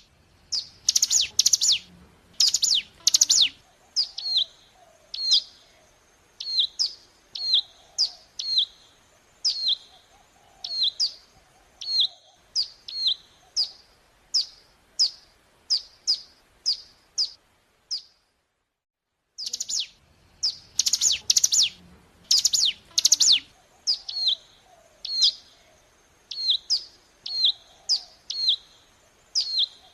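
Ciblek gunung song: a loud burst of rapid chattering notes, then a long run of identical sharp, down-slurred chirps at about one and a half a second. The sequence stops suddenly, and after a short silence the same sequence starts again, a looped lure recording.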